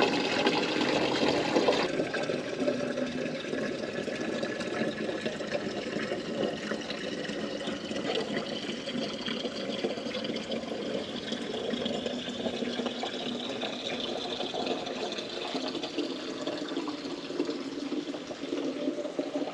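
Spring water running steadily from a fountain spout, splashing.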